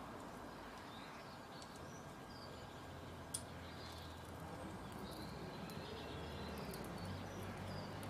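Faint outdoor bird ambience: scattered short, high chirps from small birds over a steady background hiss, with one sharp click about three seconds in.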